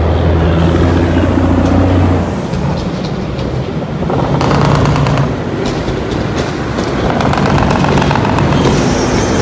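Heavy semi truck diesel engines running close by. A deep, steady engine tone holds for about the first two seconds, then drops away as other engine tones and traffic noise take over.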